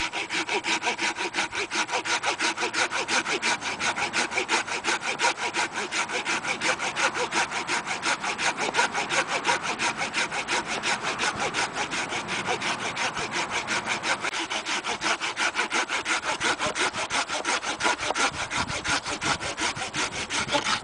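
Small ParkSide garden hand saw, its teeth freshly set, sawing through a green cherry branch with rapid, even back-and-forth strokes, cutting steadily without binding.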